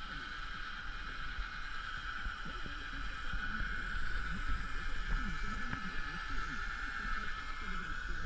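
Electric fishing reel's motor whining steadily at one near-constant pitch as it winds in line. It starts at the press of the reel's button and runs on without a break.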